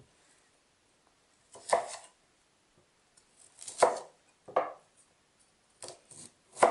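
A large kitchen knife cutting raw broccoli into florets on a wooden cutting board. There are about six separate cuts at uneven spacing, starting nearly two seconds in.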